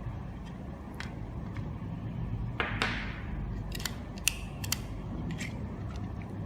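Sharp plastic clicks and scrapes of AAA batteries being pressed into the battery compartment of a vehicle alarm unit, with a short scraping rustle about two and a half seconds in.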